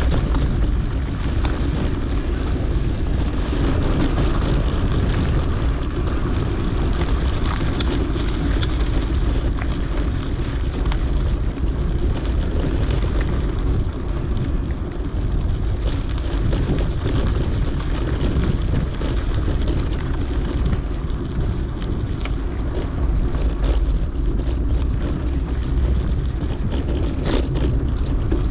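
Wind buffeting a GoPro's microphone while a mountain bike rolls along a dirt trail, a steady rumbling rush with a few sharp knocks.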